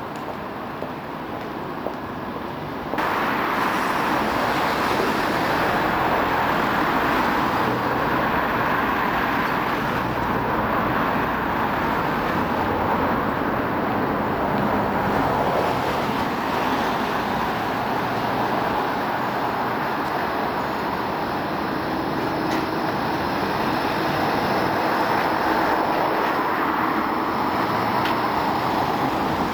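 Steady road traffic noise with a modern low-floor electric tram running on street track, passing close by near the end. The noise gets suddenly louder about three seconds in.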